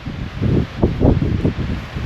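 Wind buffeting the microphone: an irregular, gusty low rumble that rises and falls every fraction of a second.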